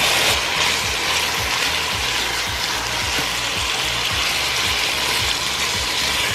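Diced chicken sizzling steadily in hot olive oil in a pot, stirred with a wooden spoon that scrapes and bumps softly against the pan.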